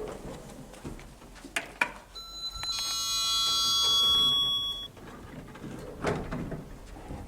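Lift chime from a modernised Otis traction lift: a high-pitched electronic tone held for about two seconds, starting about two seconds in, with a few light clicks before and after it.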